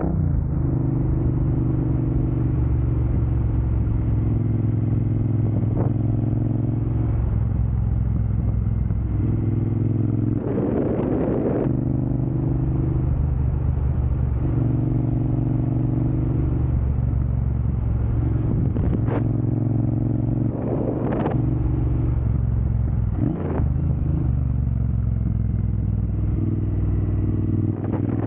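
Triumph Bonneville Speedmaster's 1200 cc parallel-twin engine running through an aftermarket Jekill & Hyde exhaust. Its note steps up and down in pitch several times, with a few short bursts of rushing noise.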